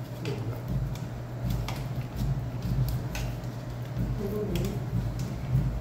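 Metal ice-cream scoop pressing açaí down into a clear plastic cup, with scattered clicks and scrapes of the scoop against the cup, over a steady low hum.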